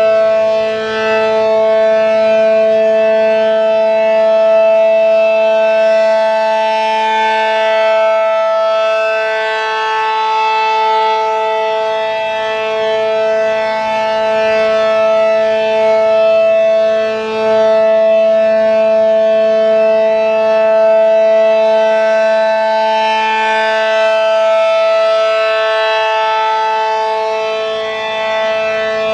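ACA Allertor 125 siren with an 8/12-port Penetrator shroud sounding a full alert: a loud, steady two-tone chord that swells and fades slowly as the rotating siren sweeps around.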